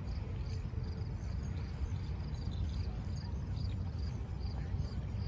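A cricket chirping evenly, about three short high chirps a second, over a loud, uneven low rumble of wind buffeting the microphone.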